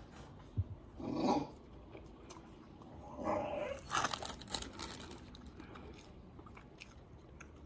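Bully-breed puppy whining twice in short cries, about a second in and again around three seconds in, wanting to be let out. Chewing and a paper wrapper crinkling sound close by.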